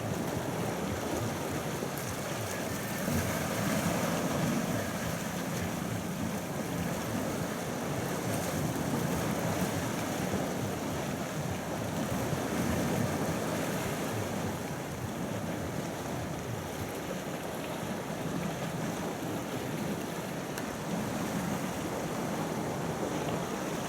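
Sea waves washing steadily, with wind buffeting the microphone and the loudness rising and falling gently.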